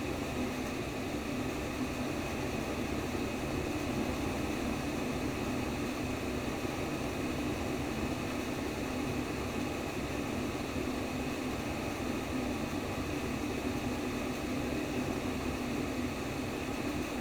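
Steady, even rushing noise of a simulated womb-sound track for babies. It is fullest in the low range and has no pauses or beats.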